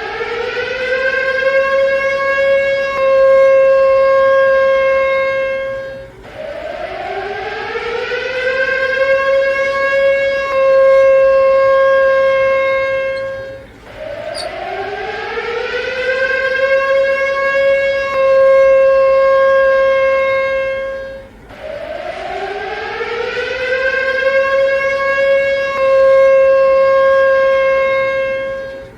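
Siren wailing in repeated cycles, four times. Each time the pitch rises over about two seconds, holds steady for a few seconds, then cuts off abruptly before starting again.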